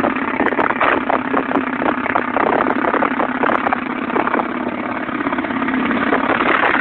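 Heavy automatic gunfire going on without a break, many shots overlapping into one dense noise.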